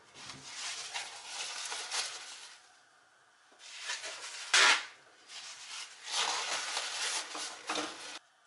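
Paper towel rustling and crinkling as it is laid into a plastic colander on a saucepan and pressed down by hand, in irregular bursts. One sharp, louder crackle comes about halfway through.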